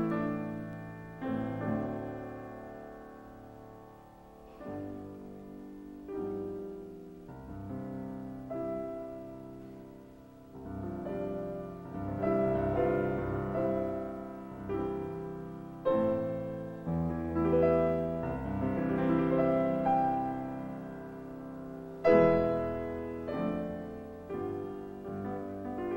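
Concert grand piano playing a classical solo piece: struck chords and melody that swell louder through the middle of the passage, with a strong chord a little before the end.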